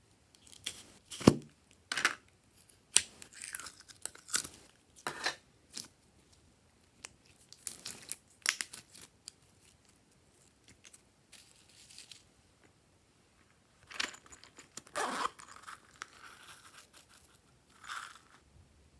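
Glossy slime being worked by hand, giving irregular sticky crackles and pops, with the loudest pop about a second in.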